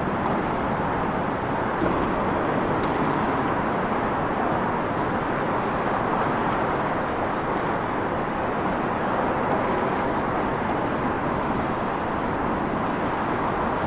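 Airbus A320-family twin-jet airliner's engines running with a steady, even roar as it taxis on the runway.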